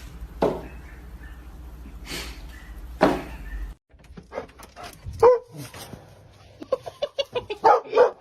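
A few sharp knocks over a low hum, then, after a sudden cut, a quick series of short animal calls and clicks.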